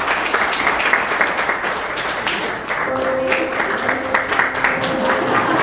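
An audience applauding, a dense patter of many hands clapping that starts abruptly and keeps up. About three seconds in, a steady held musical tone comes in under the clapping.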